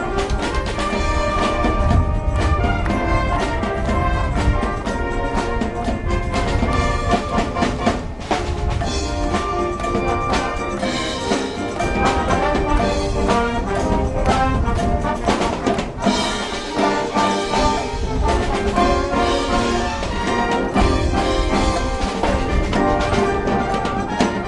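High school marching band playing live: brass chords with trumpets and trombones over a steady drum beat.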